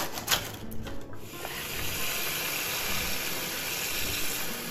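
A knife sawing through stale bread crust, crackling in the first second. Then a kitchen tap runs steadily into a steel pot of bread pieces.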